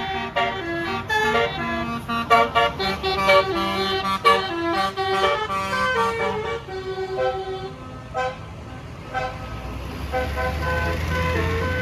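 A bus's basuri telolet horn playing a quick tune, its notes stepping up and down one after another. About ten seconds in, a deep engine rumble comes in under the horn.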